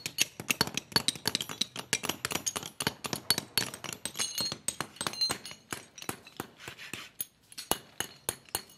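Rapid hammer strikes on cast brake shoes held against a steel block, knocking off the excess casting flash: sharp metallic clinks, several a second, with small pieces clattering.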